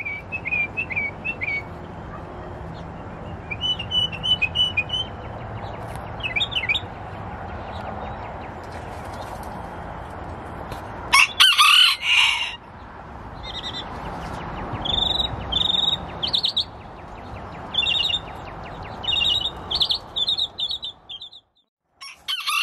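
A rooster crows once, the loudest sound, about eleven seconds in. Around it, small birds chirp in short high calls, more often in the second half.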